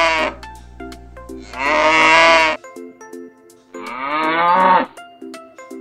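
Cow mooing: the end of one moo, then two full moos about two seconds apart, each lasting about a second. Light children's background music with short plucked notes plays underneath.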